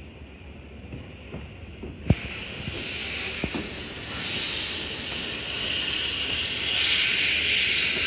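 Steam locomotive letting off steam: a loud hiss starts suddenly about two seconds in, with a sharp clank at its onset, and grows louder as the train moves off, with a few light knocks under it.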